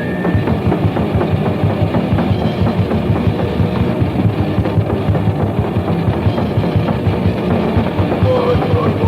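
Crust punk band playing at full tilt, a raw demo recording: a fast, pounding drum kit beat under distorted guitar and bass.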